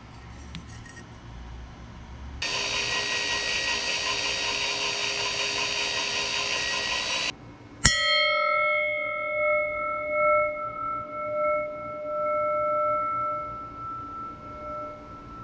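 A power tool runs steadily for about five seconds and stops suddenly. Moments later a single sharp strike on steel rings out with a clear, bell-like tone that slowly fades.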